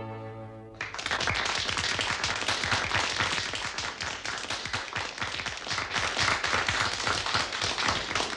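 The last sung note fades out, and about a second in, an audience breaks into steady applause that carries on.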